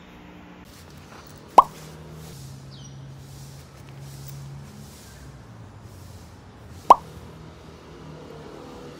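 Two identical quick falling "bloop" sounds, like water-drop plops, about five seconds apart, over soft low background music.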